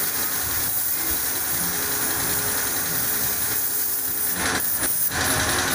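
Air spray gun hissing steadily as it sprays clear coat onto a car body. The hiss breaks off briefly a couple of times near the end as the trigger is let go.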